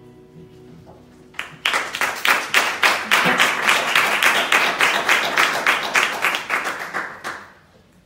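Audience applauding after a song ends: the clapping starts about a second and a half in, runs for about six seconds and fades out near the end.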